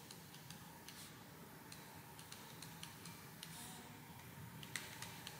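Faint, irregular light ticks and clicks of a stylus tapping a drawing tablet while handwriting labels, over faint room hum.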